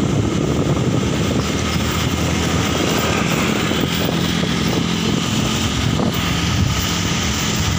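Small motorbike engine running steadily while riding along, with road noise.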